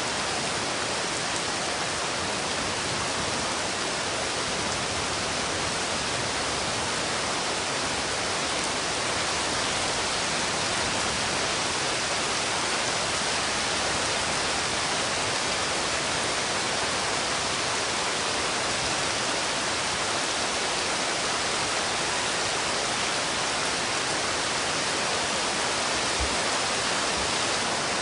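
Steady heavy rain, an even unbroken hiss with no separate drops standing out.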